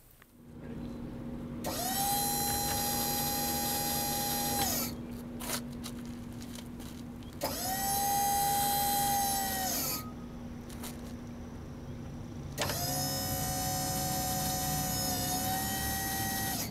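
12-volt electric hydraulic pump of the auto hitch's power unit running in three separate runs of about three seconds each, a steady high whine that sags slightly in pitch as each run ends, as it drives the hitch's hydraulic cylinders. A steady low hum runs underneath.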